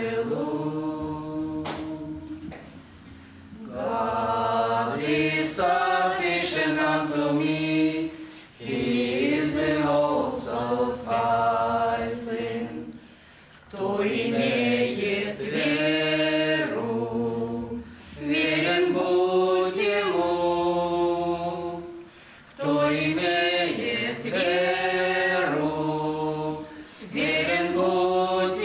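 A small mixed group of women and men singing a cappella, with no accompaniment, in phrases of a few seconds separated by brief breaths.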